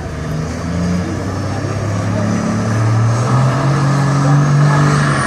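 Diesel semi truck engine revving up and building under load as it starts pulling the weight sled, its pitch and loudness rising steadily, with a high whistle climbing near the end.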